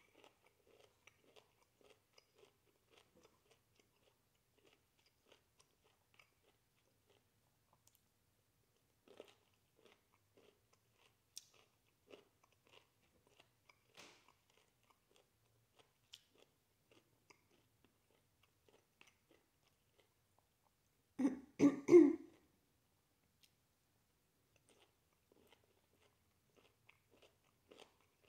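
Quiet chewing of cooked broccoli, with faint clicks of a fork in a bowl. About 21 seconds in comes a short, loud double cough.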